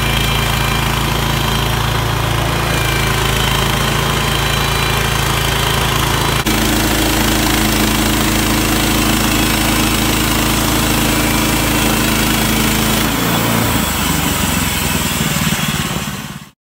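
Sawmill's engine running steadily. About six seconds in, with a click, its note shifts; near the end the pitch falls before the sound cuts off abruptly.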